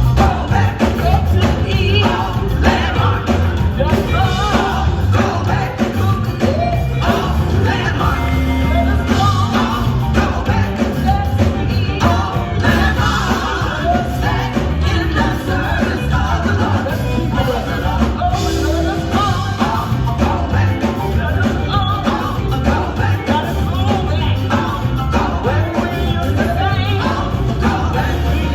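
Live performance by a sisters' vocal group singing with a full band; a steady, driving bass and drums run under the voices.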